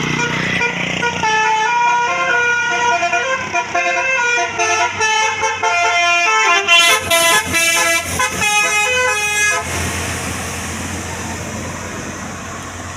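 Bus 'telolet' Basuri musical air horn playing a tune of short, stepped notes in several voices for about nine seconds. It then stops, leaving a steady rushing noise.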